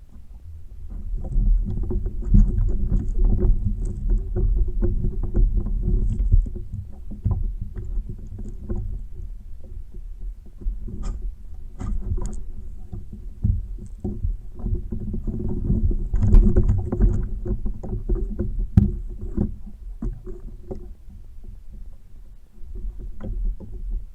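Low rumbling thumps and knocks from a fishing kayak's hull and gear picked up through the kayak-mounted camera, with scattered sharp clicks; it swells louder for a few seconds early on and again a little past the middle.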